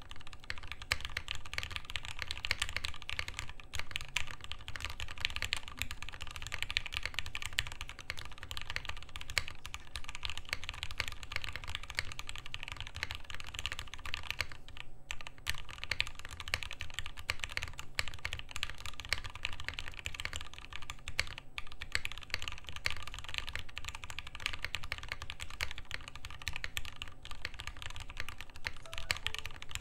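Fast, continuous typing on an FBTKL mechanical keyboard built with a soldered PCB, a POM plate, Gateron Ink switches and no foam, in a top mount. The key clacks run together, with a brief pause about halfway.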